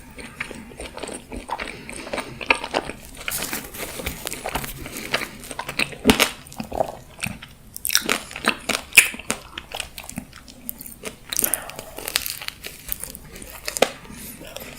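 Mukbang ASMR eating sounds: repeated crunchy bites into food, with chewing in between.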